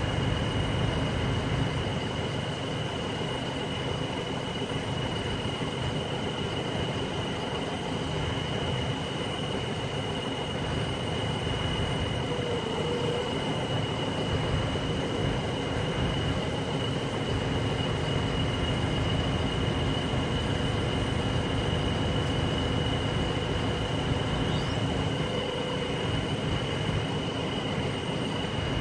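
Mobile crane's engine running steadily while it holds a suspended rooftop air-conditioning unit, a low rumble with a steady high whine over it.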